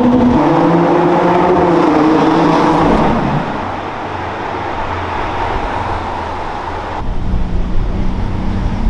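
High-performance car engine running hard and passing by, its pitch dropping about three seconds in as it fades away. About seven seconds in a deeper, rougher engine rumble takes over.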